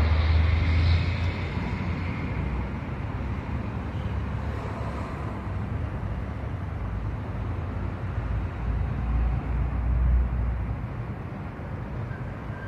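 Street traffic noise with a low rumble that swells at the start and again about eight to ten seconds in. A siren begins faintly near the end.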